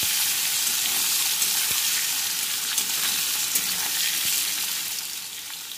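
Diced potatoes sizzling in hot mustard oil in a metal kadai as they are stirred with a spatula, with a few faint clicks of the spatula against the pan. The sizzle eases a little near the end.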